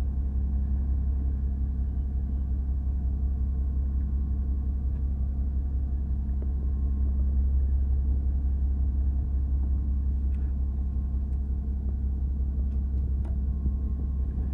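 A fishing boat's engine running with a steady low drone, with a few faint ticks in the second half.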